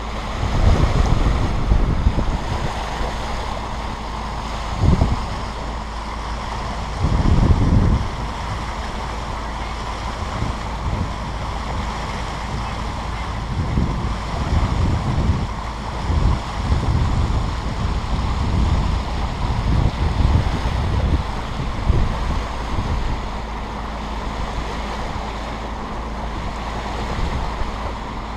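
Wind buffeting the microphone in irregular gusts over a steady rush of water along a sailboat's hull, with a faint steady hum underneath.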